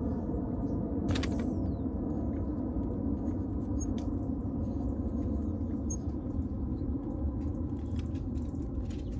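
Water rushing steadily from a garden hose turned on at the spigot, a low even rush with a few small clicks.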